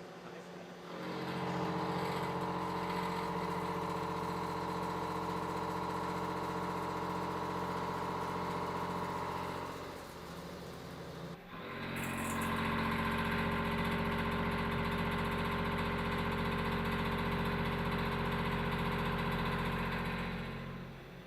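CNC turning center running, a steady machine hum and whine of constant pitch. It rises about a second in, drops out briefly about halfway through, then runs steadily again.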